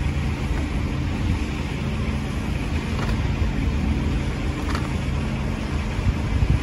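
Steady low rumble of wind blowing across the microphone, with a few faint clicks.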